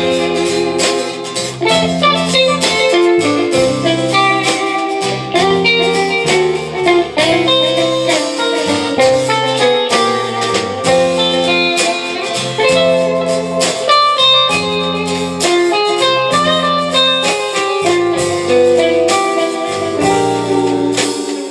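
Live instrumental rautalanka (Finnish twang-guitar music) played by a band: electric guitar melody over acoustic rhythm guitar, bass and drums.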